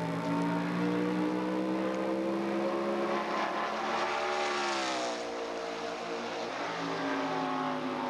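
NASCAR race truck's V8 engine passing at speed. The engine note climbs as the truck approaches, is loudest with a rush of noise as it goes by about halfway through, and the pitch drops sharply as it moves away.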